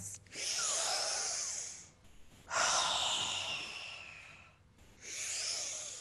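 A woman breathing forcefully and audibly close to a microphone as part of a breathwork exercise: three long, deliberate breaths, each a rush of air that fades away, with short pauses between them.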